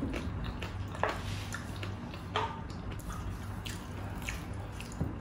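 Close-up eating sounds: wet mouth smacks and sharp clicks about every half second to a second while crispy fried pork knuckle is torn by hand and chewed.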